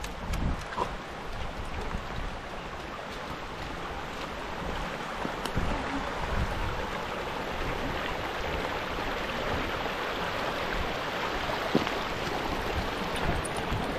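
Wind buffeting the microphone in irregular low gusts over a steady rushing hiss.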